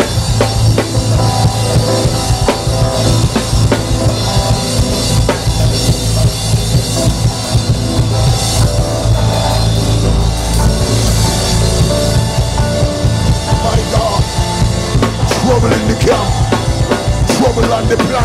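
Loud praise music from a church band: a drum kit keeps a steady beat over a deep, continuous bass line.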